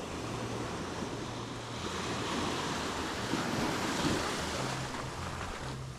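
Surf breaking and washing on a sandy beach, swelling about two seconds in and easing after about four seconds, with wind buffeting the microphone.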